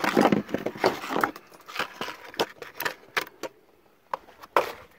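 Handling noise from small metal parts and cardboard boxes: a dense rattle and rustle for about the first second, then scattered sharp clicks and knocks.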